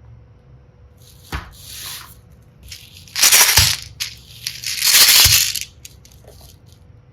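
Slime packed with small hearts and seashells being pressed and squeezed by hand, giving a crunchy crackle in three bursts, each with a soft thud; the second and third are the loudest.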